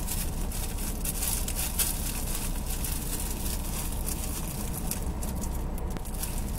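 Close rustling and crackling handling noise, irregular and scratchy, over the steady low hum of a car idling as it warms up.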